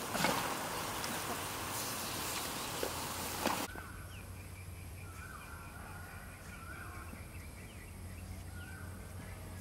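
An even hiss with a couple of sharp clicks cuts off abruptly a little under four seconds in. It gives way to quieter open-air ambience with birds chirping and calling repeatedly over a steady low hum.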